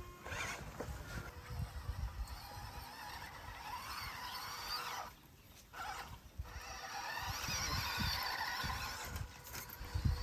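1/12-scale RC crawler's electric motor and gearbox whining, the pitch rising and falling with the throttle and cutting out briefly about five seconds in, with irregular low knocks and rumble underneath.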